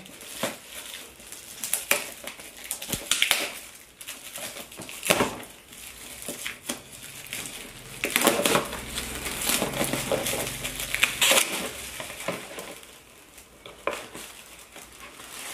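Gift wrapping and foil packaging being torn open and crinkled by hand, in irregular crackling rustles and short rips.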